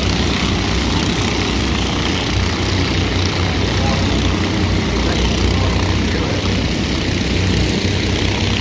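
Stoxkart racing kart engines running hard, a steady loud drone.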